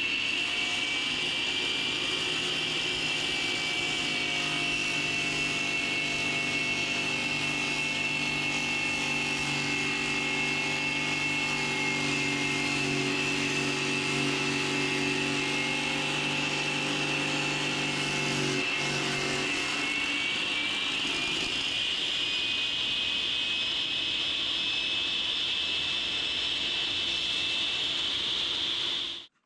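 iQ MS362 masonry saw running with a steady high whine over a low hum. About twenty seconds in the hum drops away and the whine rises in pitch, then the sound cuts off abruptly near the end.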